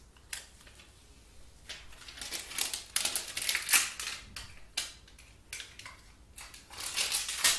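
Thin plastic protective stickers being peeled and handled on a smartphone: crinkling, rasping plastic in two spells, one from about two seconds in and one near the end, with a few sharp clicks between.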